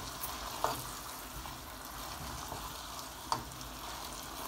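Potatoes, carrots and beef steaks in a thick tomato masala sizzling in a nonstick pot while a spatula stirs them gently. There is a steady hiss, with two sharp clicks of the spatula against the pot, one about a second in and one about three seconds in.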